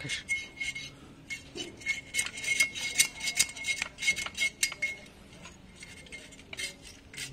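Clicking and clinking of hard plastic and metal parts of an electric scooter's rear assembly as they are handled and worked with a screwdriver. The clicks come thick and fast for about five seconds, then a few more near the end.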